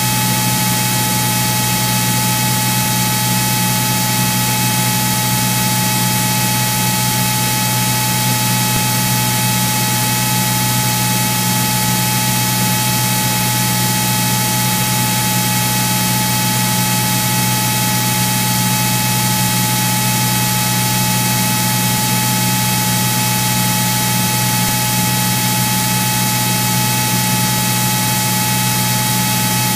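Steady in-flight cabin noise of a Cirrus SR22 piston single: an even drone and hiss with a constant high whine.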